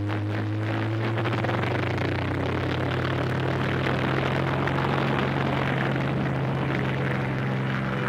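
Piston engines of two Spitfire fighters taking off, a loud, steady low drone over a rough noise, from an old film's soundtrack played through a room loudspeaker. Music starts to come in near the end.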